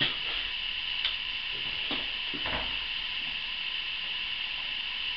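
A few light clicks and knocks from hands working at a motorcycle's controls, over a steady hiss; the engine is not running.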